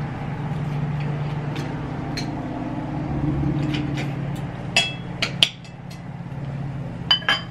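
Metal cutlery clinking against ceramic plates and bowls: a few sharp clinks in the second half over a steady low hum.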